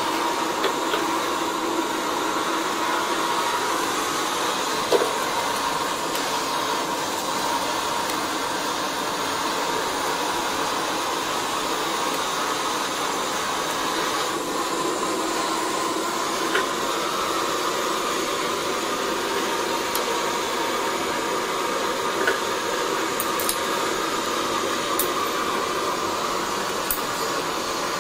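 Steady, even whooshing background noise throughout, with a few faint clicks and taps as metal battery plates are handled.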